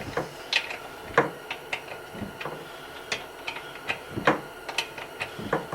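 Irregular metallic clicks and clinks of hand tools being handled on a workbench, a dozen or so short sharp knocks.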